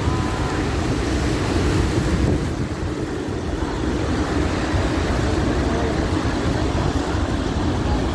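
Steady, loud roar of Niagara Falls' falling water close up, mixed with wind buffeting the microphone.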